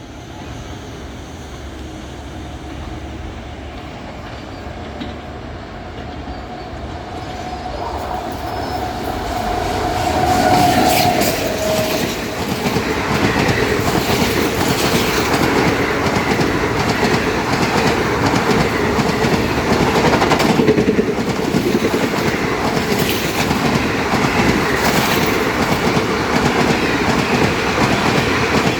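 Indian Railways superfast express train arriving and running past, growing steadily louder over the first ten seconds, then a sustained loud rumble with wheels clattering over the rail joints. A thin steady tone rises out of the noise as the train arrives and dips in pitch just as it gets loudest.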